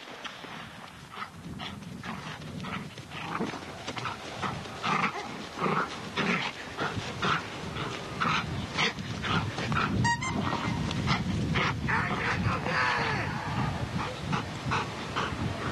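Belgian Malinois barking repeatedly at a decoy, about two barks a second.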